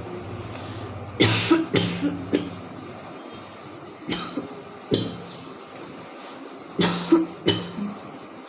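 A woman coughing in short bouts: a cluster of coughs about a second in, single coughs around four and five seconds, and another cluster near seven seconds.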